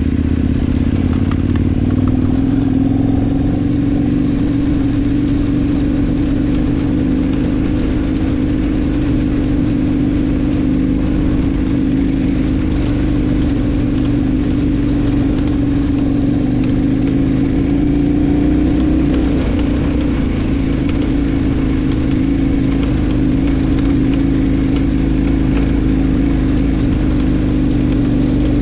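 KTM adventure motorcycle engine running at a steady speed, its pitch holding nearly level throughout.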